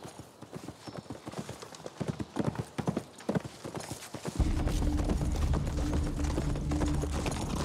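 A horse's hooves clopping on a leaf-strewn dirt path as a rider approaches. A little past halfway, a low steady music drone comes in under the hoofbeats.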